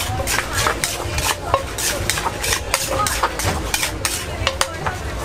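Cooking utensils knocking and clinking against dishes and pans, in a quick uneven rhythm of about two to three knocks a second, some of them with a short metallic ring, over a steady low rumble.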